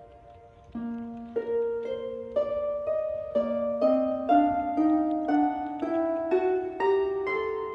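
Background music: a gentle melody of plucked string notes, about two notes a second, coming in about a second in after a brief lull.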